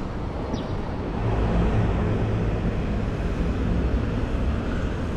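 City street traffic: the steady low rumble of a car engine running nearby.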